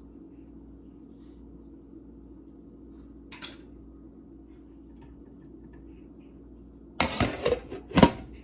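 Metal kitchenware clinking and clattering in a quick cluster near the end, with one short click a few seconds earlier, over a low steady hum.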